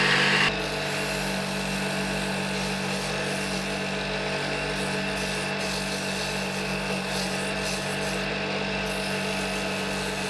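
Homemade wood lathe running, its 0.6 kW electric motor (salvaged from a pump station) humming steadily while a hand-held chisel scrapes and cuts a spinning wooden blank, throwing a lot of chips. The cutting is loudest for the first half second, then settles to a steady, lighter scrape.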